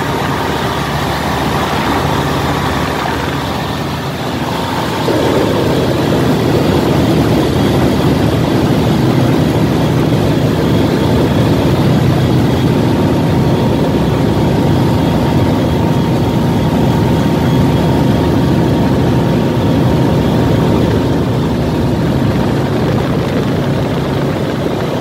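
Engine running steadily, a continuous drone that grows louder about five seconds in and then holds level.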